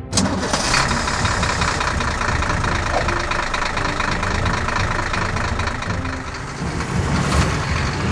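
A vehicle engine running steadily with a fast, even pulse. It dips briefly after about six seconds and picks up again.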